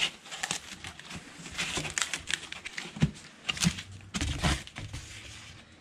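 Wheel packaging being handled and pulled off: plastic wrap and a cloth bag crinkling and rustling, with irregular crackles and a few dull knocks against the cardboard box about three to four and a half seconds in.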